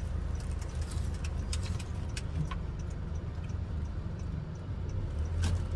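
Car running, heard from inside the cabin as a steady low hum, with scattered small clicks and taps over it.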